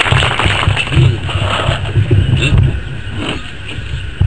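Microphone handling noise through a PA system: uneven low rumbling thumps as a microphone is taken and adjusted on its stand, with a few claps dying away at the start and a sharp knock near the end.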